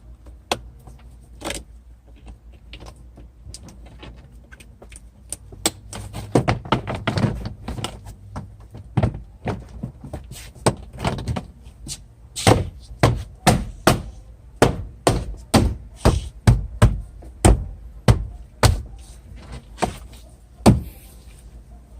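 Car door trim panel being handled and struck: scattered clicks and knocks at first, then a steady run of thumps about two a second from about halfway through.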